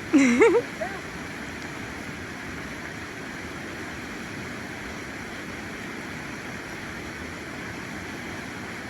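Steady rush of a waterfall and river. In the first second a person briefly voices a sound with a bending pitch.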